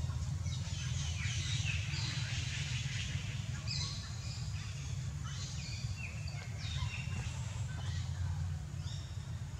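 Outdoor ambience of high, short chirping animal calls, many of them falling in pitch, scattered throughout over a steady low rumble.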